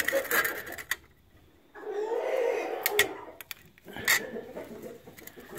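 Light plastic clicks and taps as a small plastic bracket is slid and pressed onto a clear plastic eye shield, with a brief muffled wavering sound about two seconds in.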